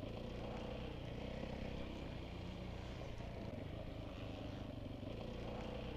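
Motocross bike's engine idling steadily, its note holding level without revving.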